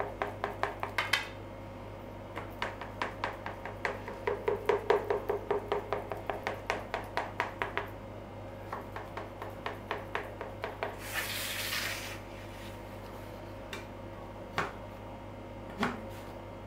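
Kitchen knife cutting soft dough in a round aluminium baking tray, its point tapping the tray bottom in a rapid series of ticks, about five a second for the first half, then sparser. A brief hiss about eleven seconds in.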